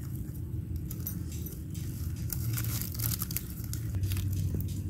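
Dry rice paper crinkling and crackling as it is handled and torn to wrap food: a run of short crisp clicks, densest in the middle, over a steady low hum.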